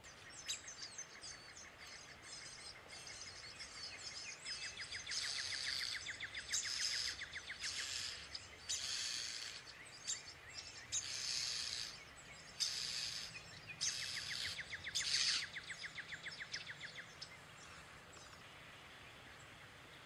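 European starling nestlings begging inside a tree-cavity nest as an adult comes in to feed them: a run of harsh, rasping calls mixed with fast buzzy rattles. The calls start just after the adult enters and die away after about 17 seconds.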